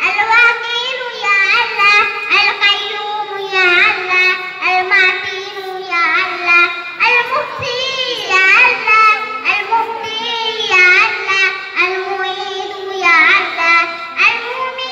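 A young girl singing into a microphone in long melodic phrases, her pitch wavering and gliding up and down.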